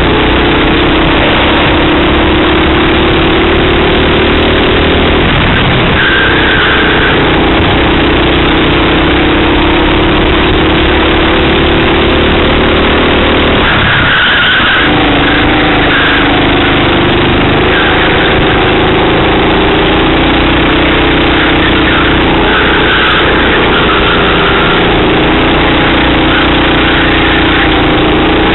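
Race kart engine heard from the kart's onboard camera, its pitch climbing steadily under acceleration. It drops sharply about halfway through as the kart slows for a corner, then climbs again.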